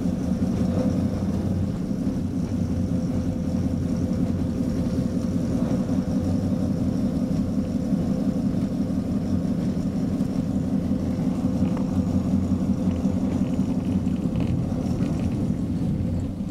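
Diesel locomotive engine running with a steady low drone while the locomotive travels along the track.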